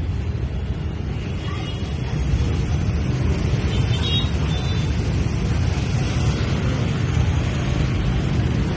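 Dense motorbike and scooter traffic: many small engines running close by in a steady rumble.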